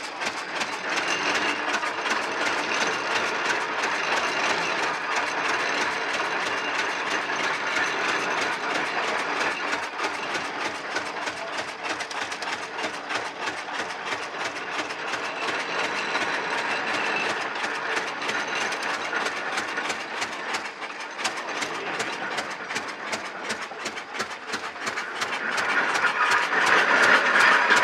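Victoria oil ploughing engine's horizontal twin-cylinder petrol-paraffin engine running, with a rapid, even knocking beat. It gets louder near the end.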